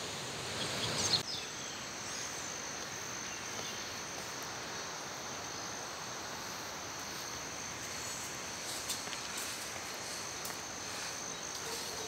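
Steady high insect trilling, crickets among them, over a soft outdoor hiss. A brief rustle in the first second cuts off abruptly.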